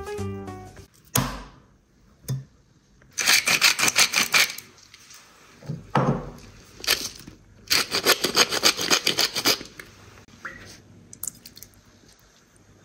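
Hand-twisted salt and pepper grinder grinding seasoning, in two bursts of rapid rasping clicks. A couple of single thuds come between them.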